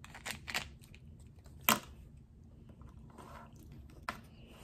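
A few sharp plastic clicks as a Kinder Joy toy capsule is snapped open and its small plastic toy parts are handled, with the loudest click a little under two seconds in and a soft rustle later on.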